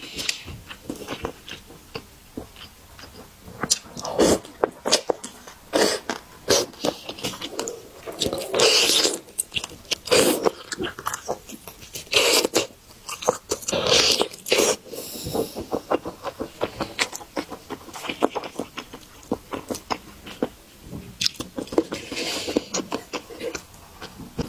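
Close-miked eating of a saucy roast chicken thigh: bites, wet chewing and lip smacks. They come irregularly, with several louder wet bursts scattered through.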